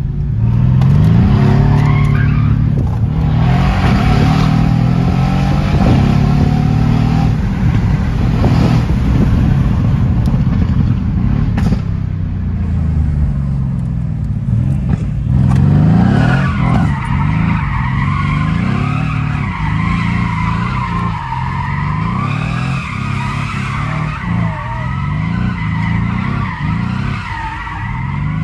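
Mercedes-AMG C63 S's twin-turbo V8, heard from inside the cabin, revving up and falling back again and again as the car pulls through the gears.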